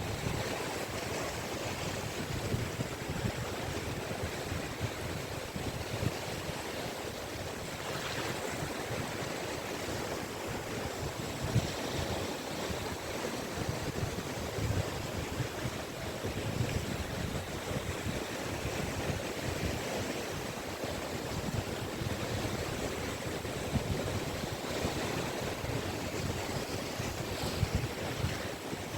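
Waves breaking and washing on a beach in a steady surf, with some wind on the microphone.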